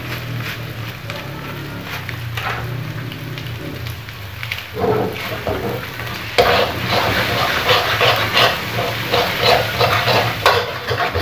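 A metal spatula scraping and tossing cabbage and egg in a steel wok as they stir-fry and sizzle. The stirring starts about five seconds in and gets louder about a second later, with quick repeated scrapes, two or three a second.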